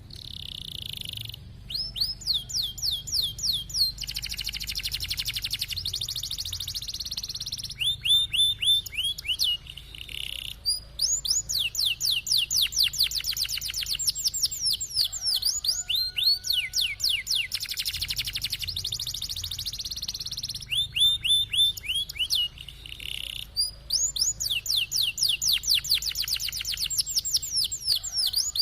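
Domestic canary singing: long, fast rolling trills of repeated down-slurred notes, phrase after phrase, with brief breaks between them.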